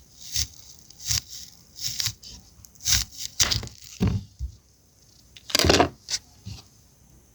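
Knife cutting through a firm pear: an irregular series of short, crisp cuts, with one longer cut about five and a half seconds in.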